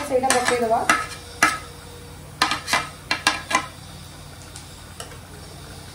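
A spoon stirring and knocking in a pressure cooker as food sizzles in it. A handful of sharp clacks come between about one and a half and three and a half seconds in, then a steady low sizzle.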